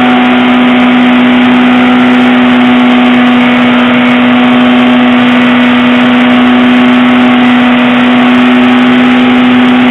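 Holden Nova's engine held at steady high revs in a standstill burnout, with the tyres spinning on the spot. Very loud and unchanging in pitch throughout.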